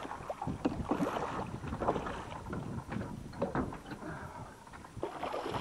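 Wind buffeting the microphone and water slapping against a small boat's hull, uneven and choppy.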